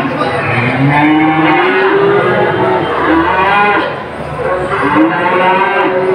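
Several cattle mooing, long drawn-out calls one after another that overlap at times.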